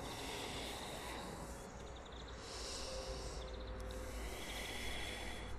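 Quiet, slow breathing held in a yoga pose, with one breath heard as a soft hiss for just under a second near the middle, over a low outdoor background hum.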